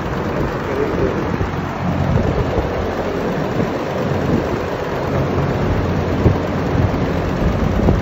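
Large cone-type suction (exhaust) fans on a poultry house ventilation wall running: a loud, steady rush of air over a low hum.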